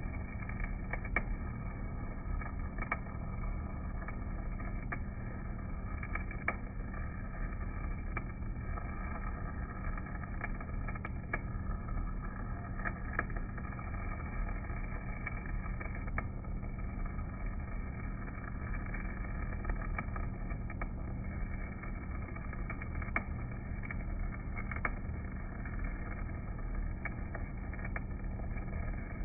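Stick welding arc burning a basic electrode, a steady crackling hiss dotted with sharp pops, over a steady low hum. It sounds muffled, with no high end.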